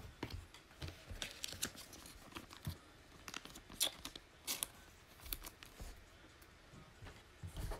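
2020 Panini Mosaic NFL trading cards being handled and slid against one another: a faint, irregular run of light clicks and rustles.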